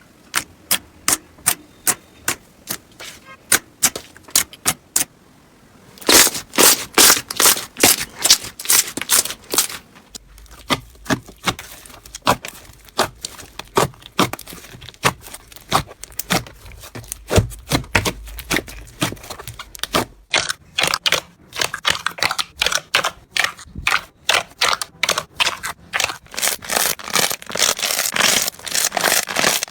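Slime being pressed and played with by hand, giving a long series of sharp crackling pops and clicks. The pops are sparse and evenly spaced for the first few seconds, then come faster and louder.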